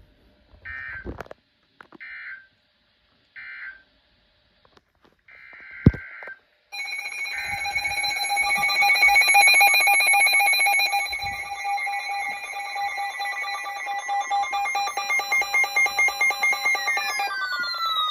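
Emergency Alert System tones from a weather radio: three short buzzing digital data bursts, then another burst with a click. After that a loud, rapidly pulsing multi-tone alert alarm sounds for about ten seconds and ends with tones sliding downward, signalling that a new alert is coming in.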